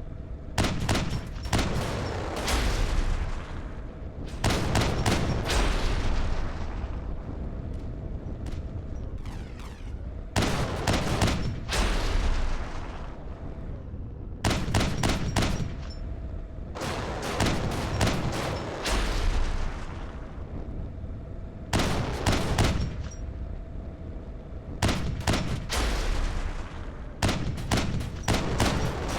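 Repeated volleys of loud, rapid bangs and crackles, each volley a quick run of several sharp reports, coming about every three to four seconds, with a faint steady hum between them.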